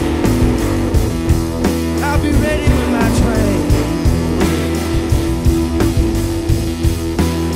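Live blues-rock band playing an instrumental passage: electric guitar with bent notes over a steady beat on a drum kit with cymbals.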